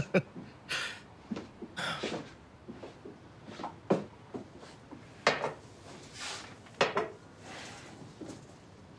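Teacups and dishes being handled: a scattered run of short clinks and knocks, with a couple of brief rustles near the end.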